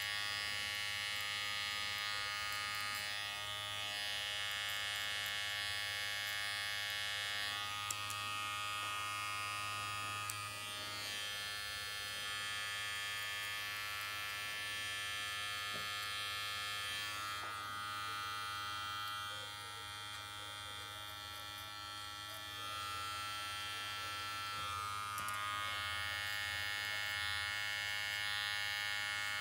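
Electric hair clipper buzzing steadily as it cuts a fade into short hair, a little quieter for a few seconds past the middle.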